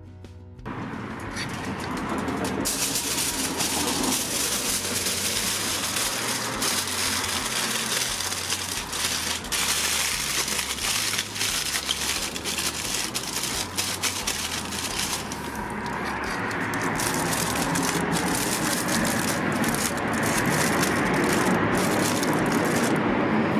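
Steady crackling hiss with many small clicks from the smoker, as foil-wrapped picanha is handled on the hot grate over glowing coals.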